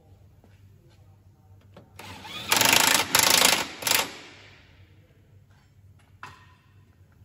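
Power impact driver run in three short bursts about two to four seconds in, nipping up the new suspension arm's bolts. A few light clicks and knocks of tools come before and after.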